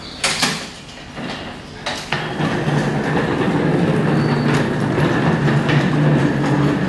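A few knocks as a wheeled suitcase is handled, then its wheels rolling steadily across a tiled floor with a low, continuous rumble.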